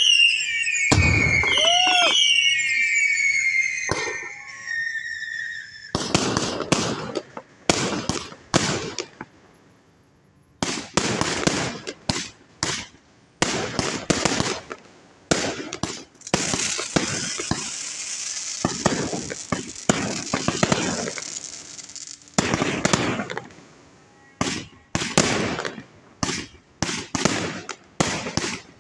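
Fireworks display. In the first few seconds there are high whistles falling in pitch. Then comes a long, irregular run of sharp bangs from shells bursting overhead, some in quick clusters, with a few seconds of dense hiss midway.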